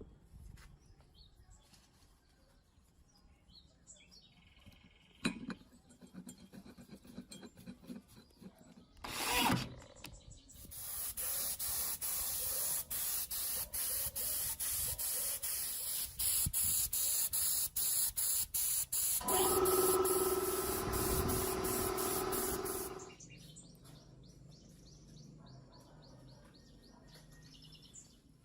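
Paint being sprayed: a steady hiss starts about ten seconds in, broken by many brief gaps, and stops sharply about 23 seconds in. A steady humming tone joins it for its last few seconds.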